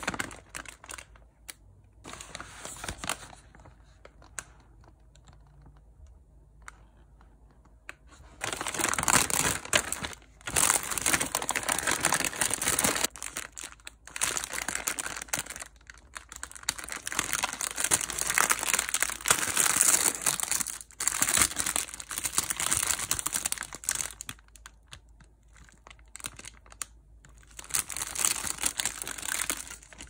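Paper bag and clear plastic wrap of a frozen sandwich crinkling and rustling as they are handled. The crinkling comes in stretches of several seconds with quieter gaps, starting in earnest about a third of the way in.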